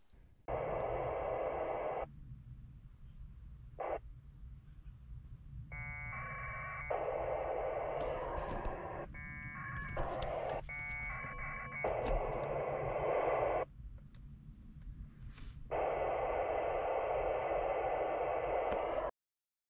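1200-baud packet radio data bursts from an ICOM 7100 transceiver: the ping packets going out and coming back over the air. It is a series of harsh bursts of a second or two each, some with steady warbling tones, separated by short gaps, over a low steady hum.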